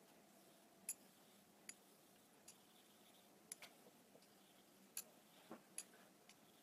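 Faint, short clicks, about one a second and now and then two close together, as a kamisori razor is worked in strokes on a small hand-held whetstone during honing.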